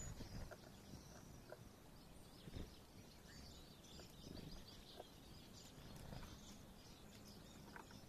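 Faint, short, high calls of small feeder birds, great tits among them, scattered through and busiest in the middle.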